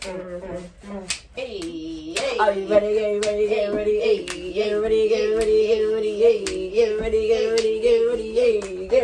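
Rhythmic hand claps, about two a second, under a voice humming or singing one long, slightly wavering note.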